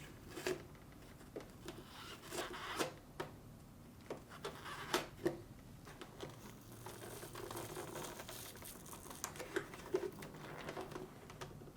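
Faint scraping and tearing as a piece of foam on a refrigerator icebox assembly is cut and peeled back, with scattered light clicks and knocks of handling and a longer stretch of soft rustling about two-thirds of the way through.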